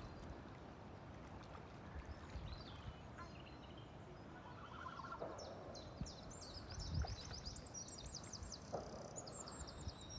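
A small bird singing from about five seconds in: quick runs of short, high repeated notes. Underneath is a steady low rumble of wind on the microphone.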